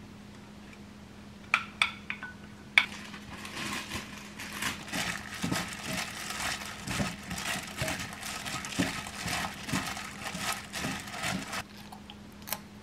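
A few sharp glass knocks about two seconds in, then a hand in a disposable plastic glove tossing a dressed salad in a glass mixing bowl: steady crinkling and rustling of the glove with small clicks against the bowl, stopping shortly before the end.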